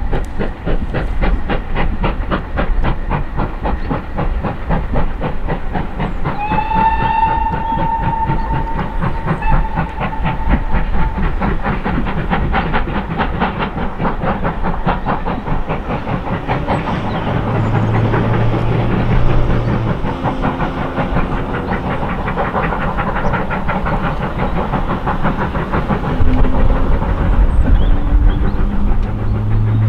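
Steam locomotive working a passenger train, its exhaust beating in a rapid, steady chuff, with one long steam whistle blast about seven seconds in.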